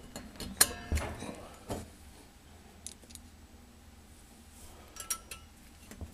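Steel coil spring and pliers clicking against the cast side frame of a 1/8-scale freight car truck as the spring is pushed down into its pocket. There are a few sharp metallic clicks in the first two seconds, one with a short ring, and another brief ringing clink about five seconds in.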